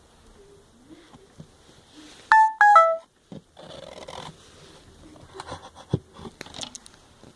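Three short electronic beeps in quick succession, each a little lower in pitch, like a phone tone. Faint clicks and rustling come before and after them.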